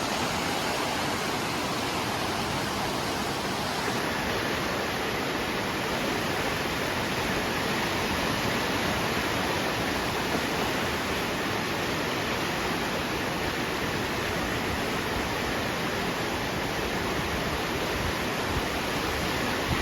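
Swollen river in flood after heavy rain, its fast water making a steady, unbroken rush.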